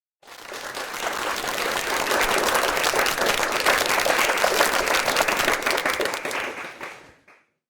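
Award-ceremony crowd applause and cheering: many hands clapping. It swells up over the first couple of seconds and fades out near the end.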